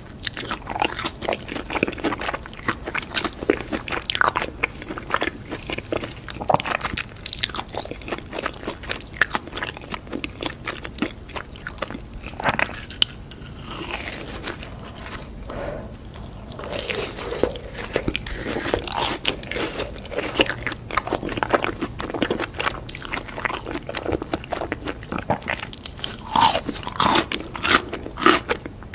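Close-miked eating: crisp crunching bites and chewing of crumb-coated fried snacks, with a softer stretch of chewing about halfway through and louder crunches near the end.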